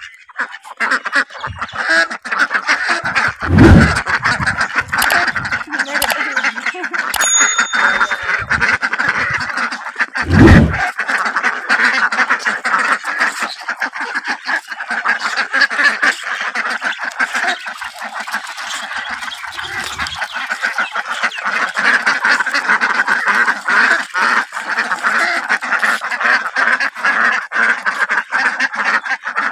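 A flock of domestic ducks quacking continuously, many calls overlapping. Two loud low thumps break in, about four seconds and ten seconds in.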